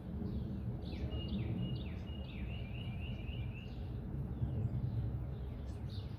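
Small birds singing and chirping: a run of short, falling chirps repeated about three times a second, with brief high held notes, over a steady low rumble of background noise that is the loudest part of the sound.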